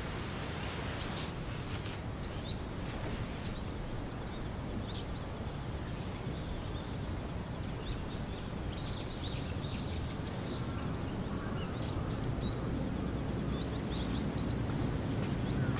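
Outdoor park ambience: a steady low background hum with small birds chirping in short scattered calls, thickest in the middle of the stretch. A few faint crackles sound in the first few seconds.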